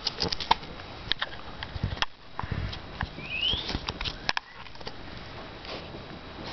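Pit bull puppy sniffing and snuffling right at the microphone, with scattered soft clicks and knocks, and one brief high rising squeak about halfway through.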